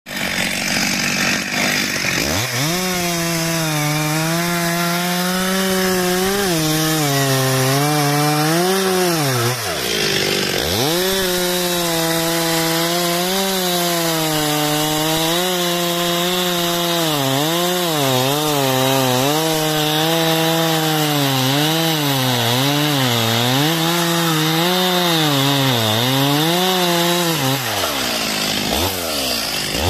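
Stihl two-stroke chainsaw at high revs, cutting the felling notch into the base of a tree trunk. The engine pitch wavers up and down as the chain bites into the wood, drops and picks up again about a third of the way in, and falls away near the end as the throttle is released.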